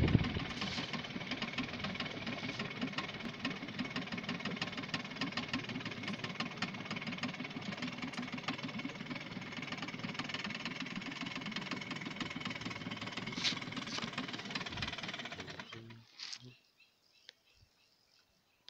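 A small engine running steadily with a rapid knocking beat, cutting out about sixteen seconds in; a few faint clicks follow.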